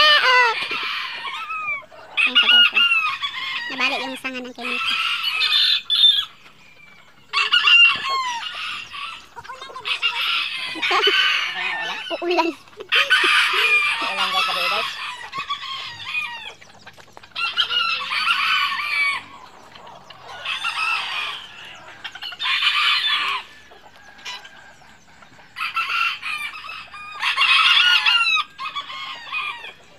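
Roosters crowing again and again, a new crow every two to three seconds, some of the calls running close together.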